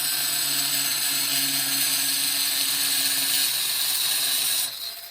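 Angle grinder with a diamond blade running steadily as its tip scores a circle into tile, then shutting off near the end.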